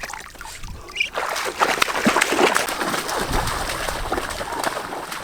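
Splashing and sloshing in shallow rice-field water, with many sharp splashes from about a second and a half in, easing off near the end.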